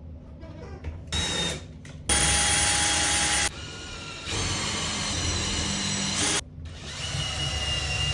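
Power drill running in three bursts, a short one, a loud one of over a second and a longer one of about two seconds, its motor whine at a different pitch each time.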